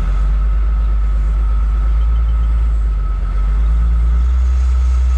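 Wheel loader's diesel engine running heavily, heard from inside the cab, with a steady high whine over the deep rumble. About three and a half seconds in the engine note grows louder and a little higher as the loader works its boom and bucket.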